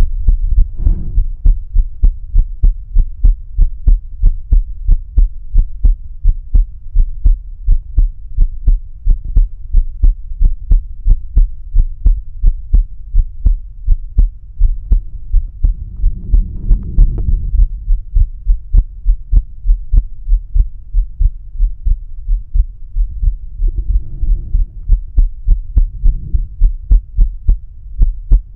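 A man's own heartbeat heard through a stethoscope bell with a microphone: a steady, regular lub-dub of heart sounds over a low hum. A soft swell of noise comes about halfway through and another near the end.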